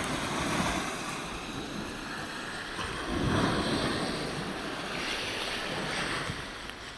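Small waves breaking and washing up onto a sandy beach. The surf swells and fades in several rushes, loudest about three seconds in.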